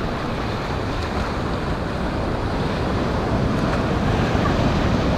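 Ocean surf washing onto the beach, a steady rush of breaking waves that swells gradually louder, with wind buffeting the microphone.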